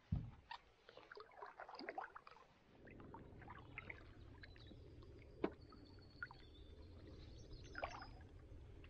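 Faint water trickling and lapping at a canoe, with scattered light knocks and one sharp tap about five and a half seconds in. A low steady rumble sets in about three seconds in.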